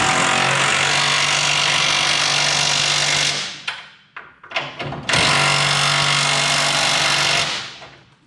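Handheld power tool running steadily in two long bursts, one of about three seconds and one of about two and a half, each winding down as it stops, with a few knocks in between. It is driving the bolts of newly installed truck control arms.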